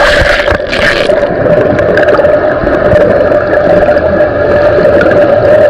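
A camera microphone underwater in a swimming pool picks up a steady hum, with bubbly crackling during the first second.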